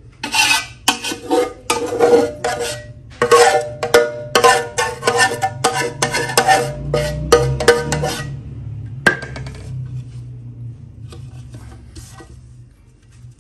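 Metal utensil scraping and knocking against a steel bowl and an aluminium pot as ground flaxseed is tipped and scraped out, each stroke ringing like struck metal. A rapid run of knocks and scrapes for about eight seconds, one more sharp knock about nine seconds in, then fainter scraping near the end, over a steady low hum.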